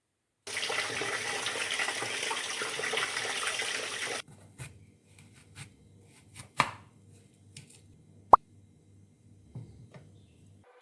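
Water running in a steady rush for about four seconds, cutting off suddenly, followed by a few light household clicks and knocks, one of them sharp.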